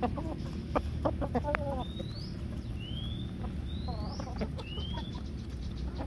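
Chickens clucking in short, irregular notes as they peck at grain, with a few short high rising chirps from another bird over a steady low rumble.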